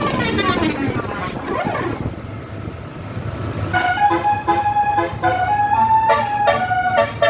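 Bus telolet basuri multi-tone horn: its tones slide down in pitch at the start, then a few seconds later it plays a stepping tune of short and held notes. A low vehicle rumble runs underneath.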